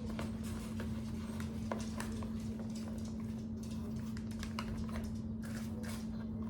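Light rustling, tapping and clicking of a box and its packaging being handled and searched, over a steady low hum.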